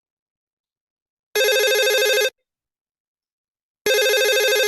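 Telephone ringing for an incoming call: two rings about a second long each, with a fast trill, about two and a half seconds apart.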